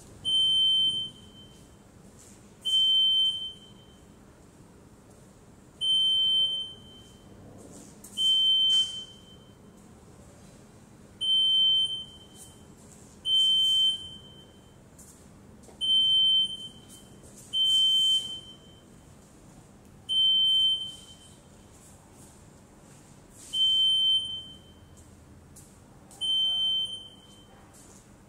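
UNIQSCAN UB500 walk-through metal detector sounding its alarm each time a person carrying a mobile phone passes through the arch, signalling that metal is detected. Eleven separate high-pitched beeps, each about a second long, come every two to three seconds.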